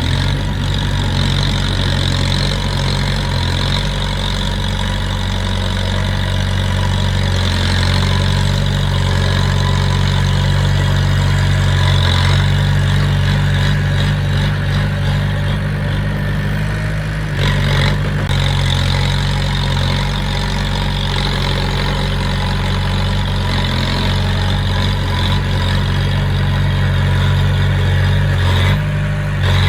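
Diesel engine of heavy earthmoving equipment running steadily at a low, even speed, with a short break a little past halfway and again near the end.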